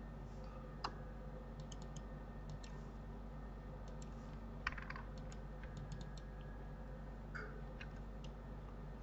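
Scattered clicks of a computer mouse, with a keyboard key or two, a few sharper clicks standing out, over a faint steady electrical hum.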